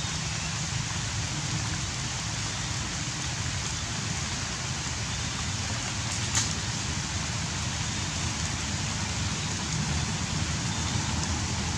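Steady outdoor forest ambience: an even hiss with a low rumble beneath it, and one sharp click about six seconds in.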